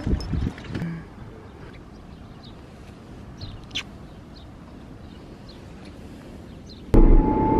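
Faint outdoor street ambience with a few handling knocks in the first second and scattered short bird chirps. Near the end it switches suddenly to the loud steady rumble and whine of a moving public transit vehicle's interior.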